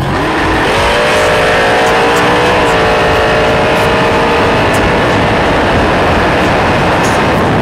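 Dragster engine at full throttle launching off the start line and running down the strip, its pitch climbing in the first seconds, with a step in pitch about two and a half seconds in.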